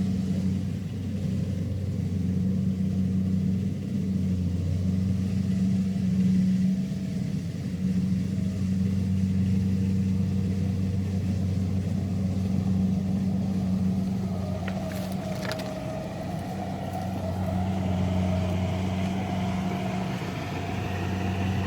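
Kubota DC-70 combine harvester's diesel engine running at a steady pace while harvesting rice, an even low drone, with a few faint clicks about three quarters of the way through.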